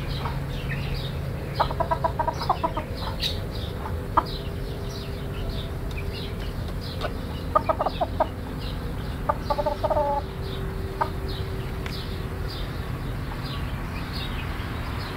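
Chicken clucking in three short, rapid runs of clucks, a few seconds apart.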